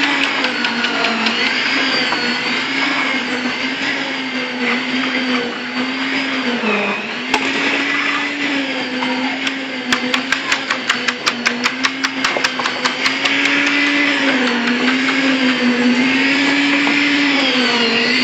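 A motor running steadily with a wavering hum, its pitch sagging briefly twice as if under load. About ten seconds in, a quick run of sharp clicks or knocks comes at several a second for a couple of seconds.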